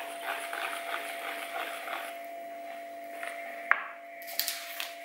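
Hand wire whisk stirring thick cocoa cake batter in a plastic bowl: soft, repeated scraping strokes. The whisking stops with one sharp click a little over three seconds in, followed by a few light rustles, all over a faint steady hum.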